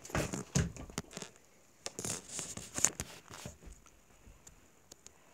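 Irregular rustling and scuffling noises with a few sharp knocks, loudest at the start and again about two to three seconds in, then fading.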